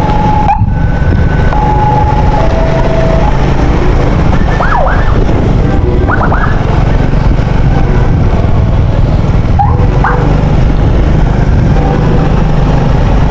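Ambulance siren alternating between two tones for the first few seconds, then giving short rising whoops a few times, over a loud steady low rumble of vehicle noise.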